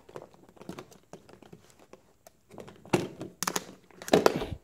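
Hands handling bagged cable accessories in a cardboard box: light scattered clicks and taps, then louder crinkling rustles of plastic packaging about three seconds in and again near the end.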